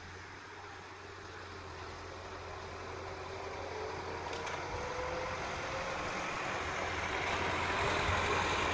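Engine of a piece of heavy construction machinery running steadily and growing gradually louder, with a faint whine in it.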